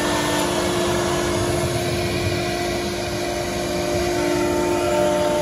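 Spindle of an ALCA 2030-3S CNC router running as it routes a melamine-faced panel: a steady whine of several held tones over a steady noise.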